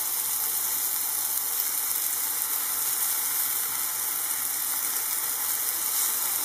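Banana slices sizzling steadily in hot coconut oil in a frying pan.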